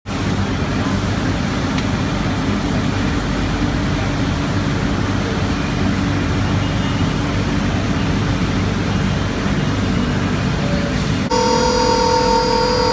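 Steady low machinery hum, then, about eleven seconds in, the milling spindle of a Soukup Versa drilling and milling machine comes in abruptly with a steady high-pitched whine.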